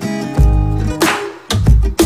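Background music: guitar over deep, heavy bass notes, with a sharp hit about halfway through.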